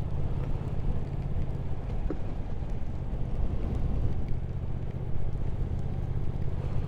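Triumph Speed Twin 1200's parallel-twin engine running steadily while riding, under an even rush of wind and road noise.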